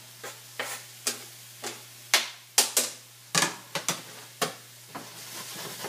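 Chef's knife chopping mushrooms on a cutting board: a dozen or so irregular sharp knocks, over a faint sizzle of vegetables frying in olive oil in a hot skillet, which grows louder near the end.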